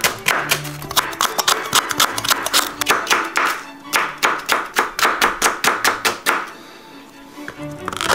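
Kitchen knife chopping green peppers into strips on a wooden cutting board, several quick chops a second, stopping for about a second near the end. Guitar music plays underneath.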